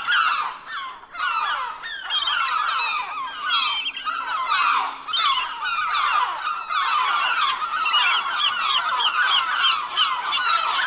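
A flock of gulls calling all at once: many overlapping squawks and short falling cries, with no break.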